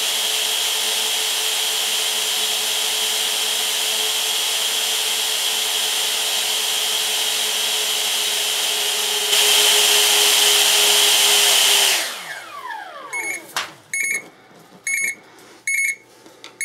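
Cooling fan of the electronic load discharging a 4S LiPo at 40 amps, running steadily with a whine and getting louder about nine seconds in. It then winds down, falling in pitch, as the discharge ends. Shortly afterwards an electronic alarm beeps repeatedly, a little faster than once a second, signalling the end of the discharge.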